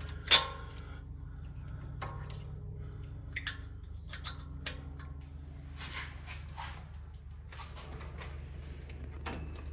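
Metal hand tools clinking and clattering while spark plugs are fitted, with one sharp metallic clank just after the start and lighter clicks after it, over a steady low hum.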